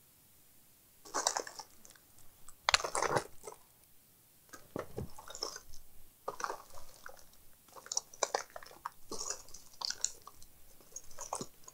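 Hands handling things at a workbench: irregular rustling, crinkling and light knocks in short bursts, the loudest about one and three seconds in, then a run of smaller ones.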